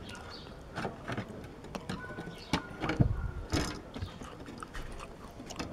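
Scattered light clicks and knocks of a thin clear plastic sheet being handled and fitted against the front of a wooden radio cabinet. The loudest knocks come about three seconds in and again at the very end.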